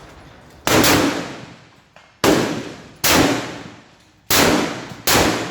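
Five centrefire rifle shots, each a sharp crack followed by a long echoing decay, spaced about a second apart.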